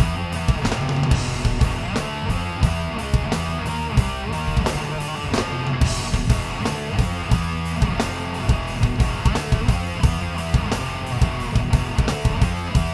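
Live rock band playing: an electric guitar riff over a steady drum-kit beat.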